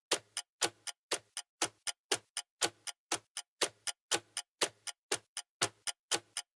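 Clock ticking: sharp, even clicks about four a second, alternating louder and softer in a tick-tock pattern.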